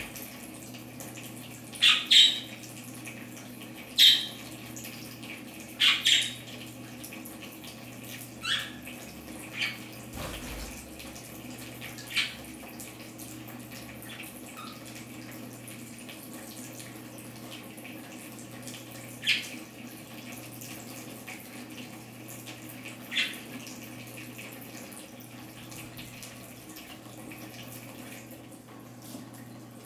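Water trickling and splashing steadily from a pumped shower arch into a budgerigar bathing tub, over the steady low hum of its small pump. Budgerigars give about ten short, sharp chirps, most of them in the first dozen seconds.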